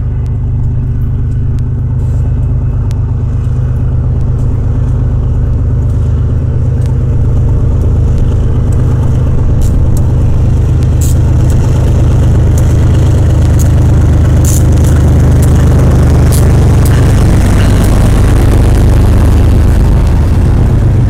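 BNSF diesel freight locomotive drawing near and passing with a steady low engine drone. Its train of covered hoppers follows, rolling by with rising wheel clatter and sharp clicks over the rails.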